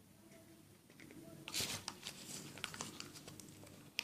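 Hands squeezing and pulling sticky iClay foam clay: a run of small sticky crackles and clicks, with a louder burst about a second and a half in.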